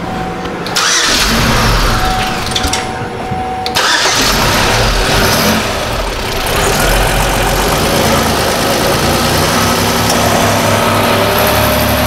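2005 Chevy Equinox 3.4L V6 being started: it catches about a second in, sags near three seconds, picks up again just before four seconds, and keeps running. It is struggling to stay running (start, stall, start, stall) because the drive-by-wire throttle actuator motor had no power from the engine main relay.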